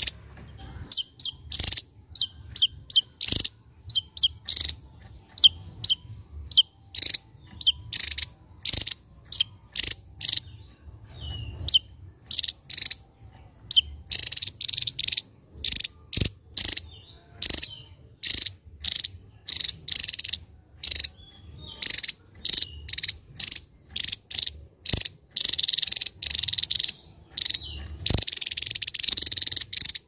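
Javan tesia calling: a string of sharp, high, explosive notes about one to two a second, breaking into faster chattering runs about halfway through and again near the end.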